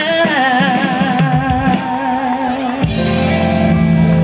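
Live band music over a PA system, with a singer holding wavering notes; about three seconds in, the singing gives way to a steady held chord.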